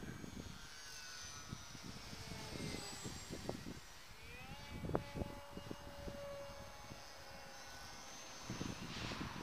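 Thin motor whine of a small electric RC model airplane flying overhead. It slides slowly down in pitch, then rises sharply about four and a half seconds in as the throttle is opened. Gusty wind rumbles on the microphone underneath.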